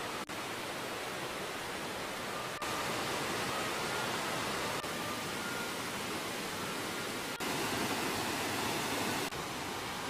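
Steady rushing of a rocky mountain stream, its level shifting slightly a few times.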